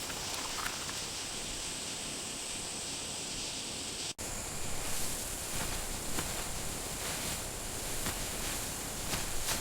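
Steady outdoor ambient noise, an even hiss with faint rustling, broken by a brief dropout about four seconds in.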